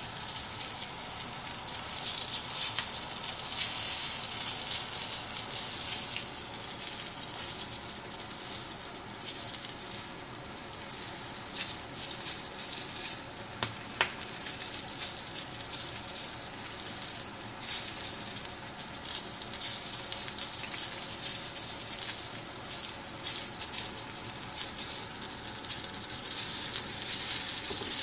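Dry-aged rib eye steak sizzling in a smoking-hot skillet of butter and olive oil: a steady frying hiss with frequent sharp crackling pops.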